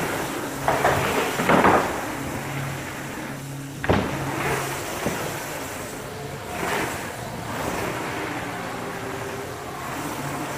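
Mountain bike riding on a dirt track: a steady rolling noise from the tyres, with louder swishes through the turns and one sharp knock about four seconds in.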